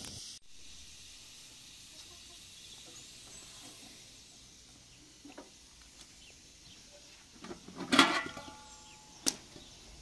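Faint background hiss, then near the end a clatter of metal cookware: a metal pot lid clanks and rings briefly, followed by one sharp clink about a second later.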